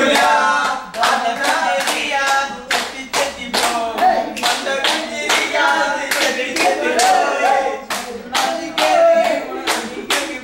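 A group of men clapping their hands in a steady rhythm, about two claps a second, while singing together.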